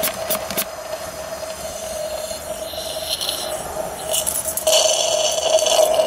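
Hand-pumped oil extractor sucking old, cold, thick gear oil out of a Mazda Miata's shift turret through its thin tube. A quick run of clicks comes in the first half second. Then hissing and slurping as air and oil are drawn through the tube, brief near the middle and stronger near the end, over a steady hum.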